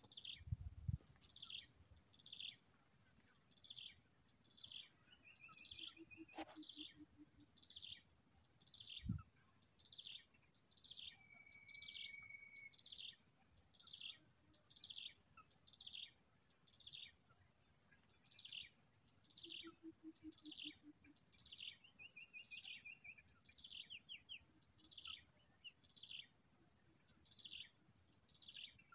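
Faint forest ambience: a bird repeats a short, high, downward-sliding call about once a second, over a steady high-pitched insect buzz that comes and goes. A short low trill sounds twice, about a third of the way in and again past two thirds.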